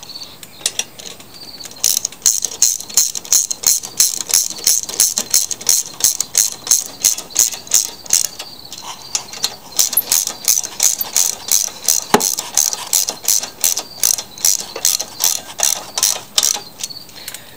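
Socket ratchet clicking in quick, even runs, about four clicks a second, as it drives in the bolts that hold a mower's recoil starter housing to the engine; the clicking breaks off briefly a little past halfway.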